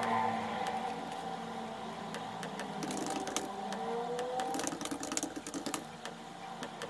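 Typing on a laptop keyboard: irregular quick key clicks, busiest in the middle stretch, over a faint steady tone.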